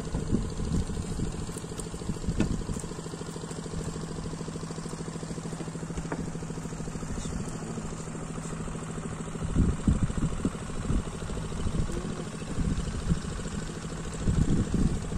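Small boat engine running steadily, with irregular low thumps about ten seconds in and near the end.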